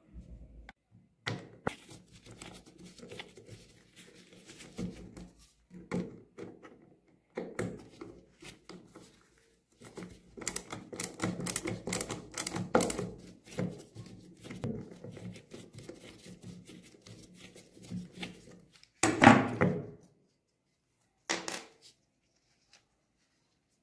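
A screwdriver working rusty screws on an air gun's rear sight block, with irregular metal clicks and scrapes and the rattle of small parts being handled. A louder clatter comes a little over three-quarters of the way in, and a short one just after it.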